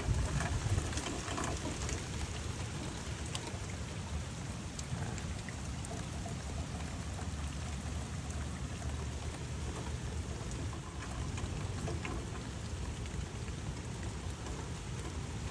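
Steady rain falling, with a low rumble underneath and a few scattered drop ticks.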